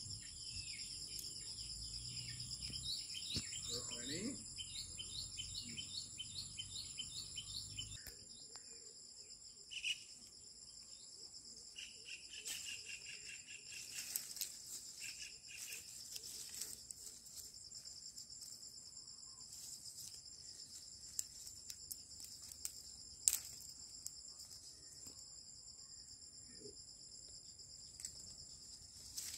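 Insects trill steadily in several high-pitched bands throughout. For the first eight seconds a bird repeats short falling chirps, about two or three a second, over a low rumble, and another bird calls briefly around twelve to fifteen seconds in. A single sharp click about three-quarters of the way through is the loudest sound.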